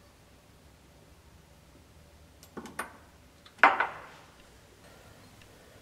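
Light glass clicks and a knock as a small glass dropper bottle is closed and set down on a lab bench: two small clicks about two and a half seconds in, then a louder knock with a short ring a little before four seconds.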